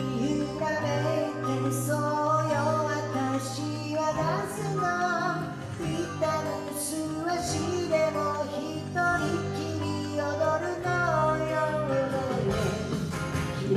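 A man singing a ballad in a high voice while strumming an acoustic guitar, played live through a hall's PA.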